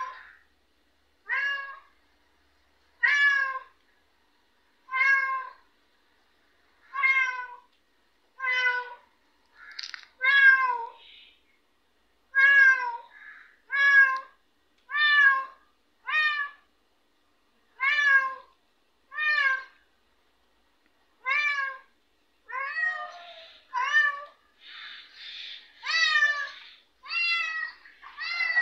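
Domestic cat in heat calling: about twenty loud meows, one every second or two, with a longer pause about two-thirds of the way through and calls crowding closer together near the end.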